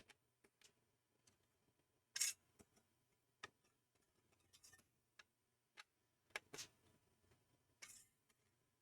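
Faint, scattered clicks and scrapes of a long-stemmed hex screwdriver working the screws that hold a Mac Pro CPU heat sink, the loudest about two seconds in, with near silence between.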